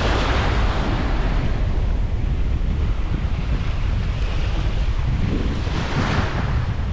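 Surf breaking and washing up the shore, swelling at the start and again about six seconds in, over a steady rumble of wind buffeting the microphone.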